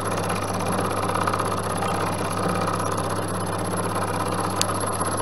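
Milling machine running steadily with a standard endmill cutting into a round metal workpiece during radial milling. One sharp tick sounds near the end.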